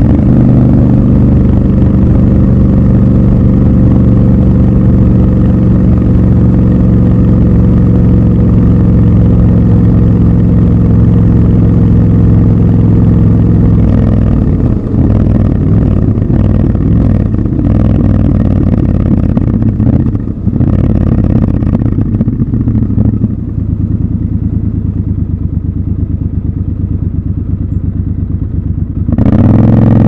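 Triumph Scrambler 1200 XC's 1200 cc parallel-twin engine, heard from the rider's seat. It runs at a steady cruise for about the first half, then the revs drop unevenly with a few clattery breaks as the bike slows. It runs lower and quieter for several seconds, and near the end the revs rise sharply as it pulls away.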